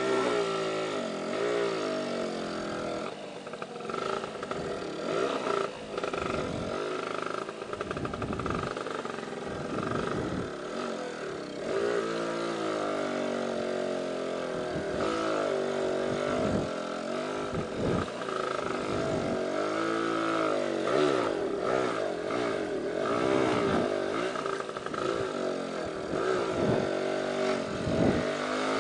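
Lambretta scooter's two-stroke single-cylinder engine being ridden at low speed, its pitch rising and falling over and over as the throttle is opened and closed.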